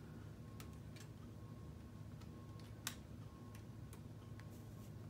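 Plastic K'nex rods and connectors clicking as red rods are unclipped and a decorative sign piece is swung upright: a handful of sharp, separate clicks, the loudest about three seconds in, over a faint steady hum.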